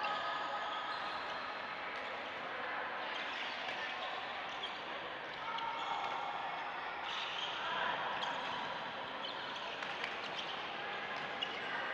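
Echoing indoor badminton-hall din: a steady mix of distant voices and play, with occasional sharp taps of rackets striking shuttlecocks.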